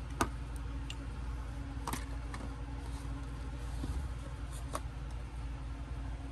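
A few light clicks of plastic action-figure parts being handled and pressed together, over a steady low hum.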